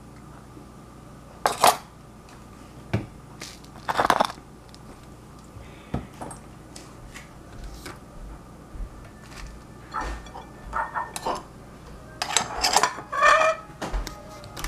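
A metal spoon and porcelain dishes clinking and clattering in a series of separate knocks, with a short, briefly ringing clatter of dishes near the end.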